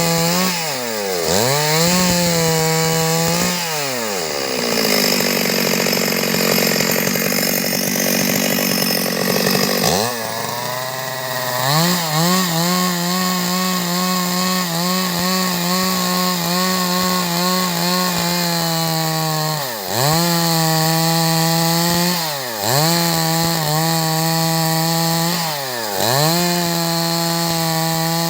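Stihl MS 382 two-stroke chainsaw cutting through wood at high revs, its pitch dipping briefly every couple of seconds as the chain bites. For several seconds near the middle the engine pulls down to a much lower speed before climbing back to full revs.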